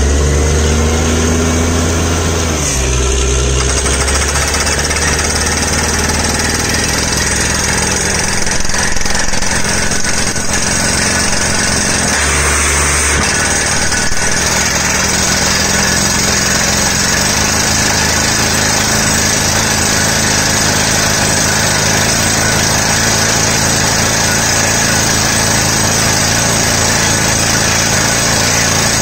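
Truck-mounted borewell drilling rig running loud and steady: its engine and air compressor drive the down-the-hole hammer, and compressed air blows dust and rock cuttings out of the bore with a constant hiss. The low engine note shifts about three seconds in and again partway through.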